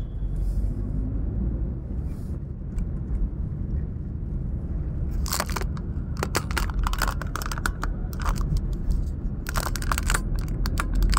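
Car cabin noise while driving: a steady low rumble of engine and tyres. From about halfway through there are many irregular crackling clicks close to the microphone.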